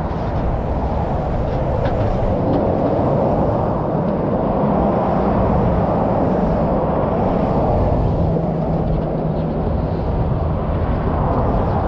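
Steady low rumble of highway traffic going past, tyres and engines blending into one continuous noise with no break.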